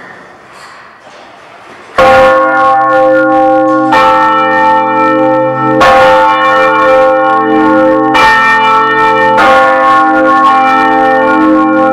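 Large church bells, swung by hand-pulled ropes, start sounding about two seconds in after a quiet build-up. They ring very loudly, with a fresh strike every one to two seconds, and each stroke rings on under the next.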